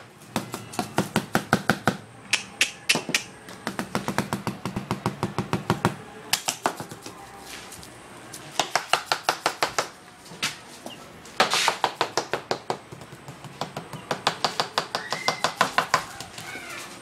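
Rapid, evenly spaced clicking, about seven clicks a second, in runs of one to two seconds with short pauses: a call to coax a leghorn rooster over.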